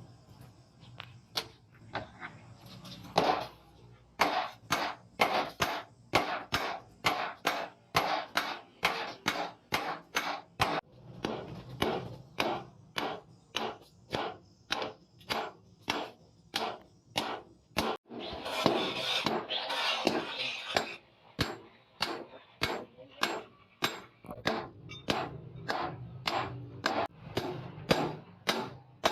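Hammer blows on spring steel in a steady rhythm, about two strikes a second, as a golok blade is forged by hand. A short rush of noise comes about two-thirds of the way through.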